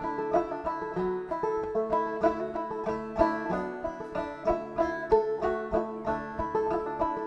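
Acoustic string-band music led by a banjo: a quick run of plucked notes in a bluegrass-folk style.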